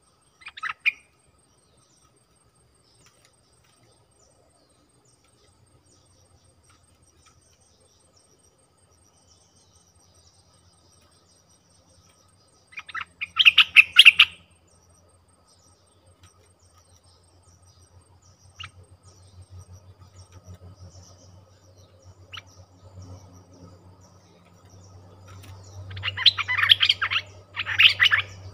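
Bulbuls calling in short bursts of quick chirpy notes: a brief call just after the start, a louder burst about halfway through, and two loud bursts close together near the end. Faint insect buzzing runs underneath.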